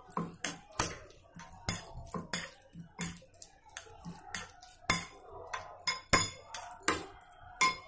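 A spoon clinking against a glass bowl while stirring a salad of sliced tomato, onion and yogurt, in irregular sharp knocks about two to three a second.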